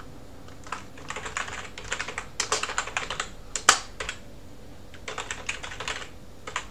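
Typing on a computer keyboard: two runs of quick keystrokes with a short pause between them, and one sharper key strike in the middle.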